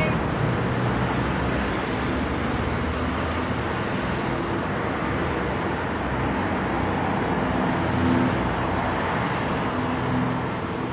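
Car on the move: steady engine and road noise, with the engine note shifting slightly.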